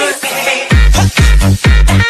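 Electronic dance music: a short pitched lead-in, then a heavy bass-drum beat comes in under a second in, about two beats a second.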